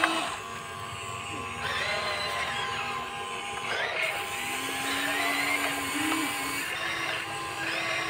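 Electric motors of a Huina radio-controlled toy excavator whining as it slews round and moves its boom and bucket, the whine changing pitch in steps as it switches between movements.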